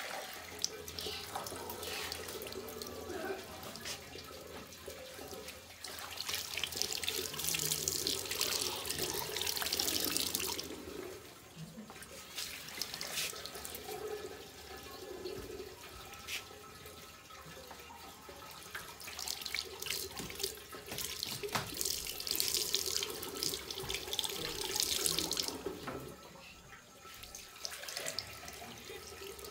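Water running and splashing, getting louder for several seconds twice: once about a quarter of the way in and again about two-thirds of the way through.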